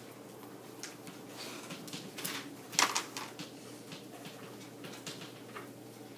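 Chalk tapping and scratching on a chalkboard in short strokes, the sharpest knock about three seconds in, over a steady low room hum.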